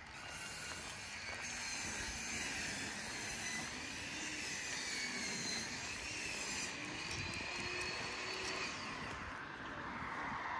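Jet aircraft passing overhead: a steady rushing engine noise with a high whine that wavers in pitch, growing gradually louder.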